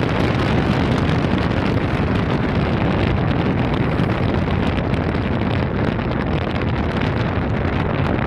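Steady wind rumble on the microphone aboard a moving tour boat, mixed with the boat's running and water noise.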